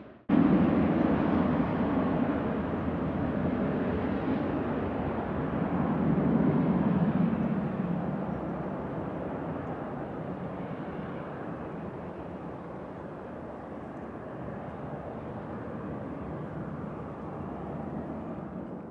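Jet airliner engines, a continuous roar that starts abruptly, swells about six seconds in, then slowly fades.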